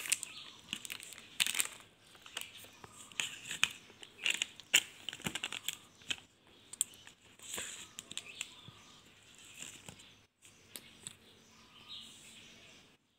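Plastic packaging crinkling and crackling as a clear plastic lid is peeled off a small plastic candy tub. The crackles come in irregular bursts and thin out in the later part.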